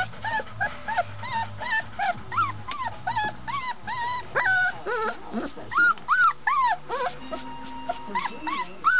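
Three-week-old golden retriever puppy whimpering and yipping: a quick string of short, high, arching squeals, about two or three a second, with a few longer whines in the middle.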